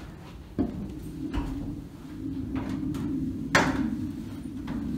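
Feet knocking on the rungs of a ladder as a man climbs it: several uneven knocks and clunks, the loudest about three and a half seconds in, over a low steady hum.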